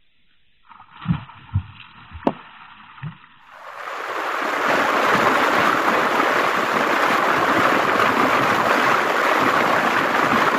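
A few short low thumps in the first three seconds, then from about four seconds in a steady rush of wind and road noise from a motorbike riding along a road.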